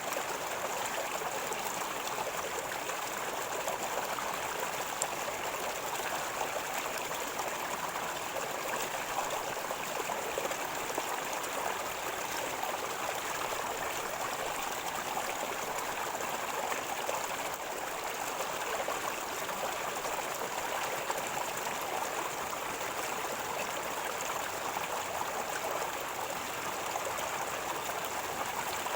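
River water flowing steadily over rocks, gurgling and trickling without a break.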